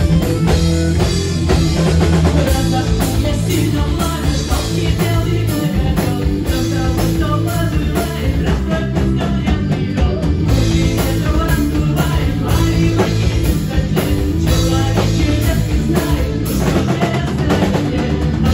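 Live rock band playing through a club PA: drum kit, bass and guitar, with a woman singing into a microphone over them.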